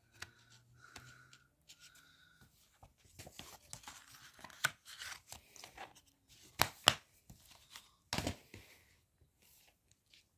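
Hands handling a plastic DVD case: scattered clicks and rustling, then a pair of sharp clicks near the middle as the case is snapped shut, and a knock about a second later as it is set back among the other cases.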